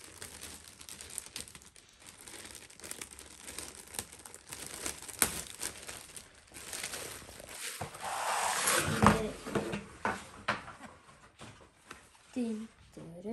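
Laptop packaging being torn open and handled: crinkling and rustling with scattered clicks, and a louder, longer rip with a thump about eight to nine and a half seconds in.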